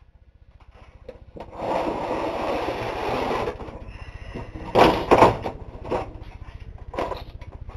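Handling noise from moving things about on a workbench: a scraping rustle for about two seconds, then two sharp knocks in quick succession and a few lighter taps, over a faint low hum.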